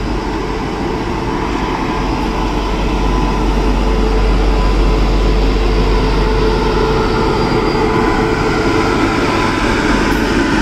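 Electric locomotive departing and rolling past close by: a steady hum with several held tones over the rumble of wheels on the rails, growing louder over the first few seconds and then holding.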